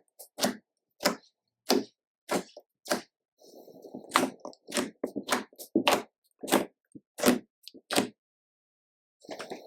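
Slime being squeezed and pressed by hand, giving sharp wet pops about every half second and a crackly squishing stretch midway as air pockets burst. There is a pause of about a second near the end before the squishing starts again.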